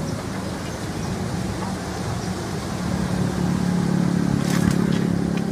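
A steady engine hum that grows louder from about halfway through.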